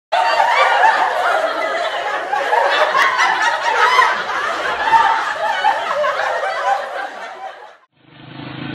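Many people laughing together, their voices overlapping in a dense burst that fades out about a second before the end. Just before the end a different, muffled recording with a low steady hum starts.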